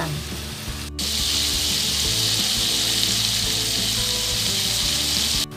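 Flour-battered oyster mushrooms deep-frying in hot oil: a steady sizzle and bubbling. About a second in it jumps louder and higher-pitched, then drops back just before the end.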